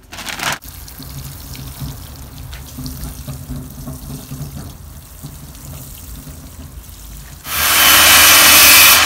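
Water pouring from a watering can onto potted soil. About seven and a half seconds in, a corded circular saw suddenly starts cutting through wood, much louder.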